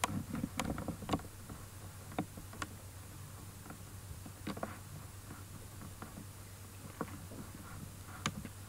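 Quiet room with scattered soft clicks and rustles from handling and movement close to the microphone, over a low steady hum.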